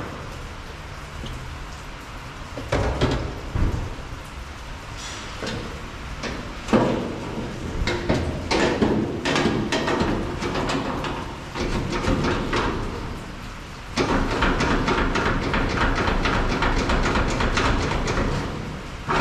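Stainless steel tray being handled and fitted onto a truck's frame brackets: metal knocks and clanks, then a long stretch of steady scraping and rattling from about two-thirds of the way in.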